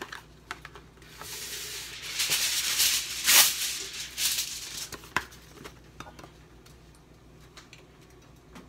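Sheet of aluminium foil pulled off the roll and torn from its box, crinkling as it is handled and laid flat, followed by a couple of light clicks.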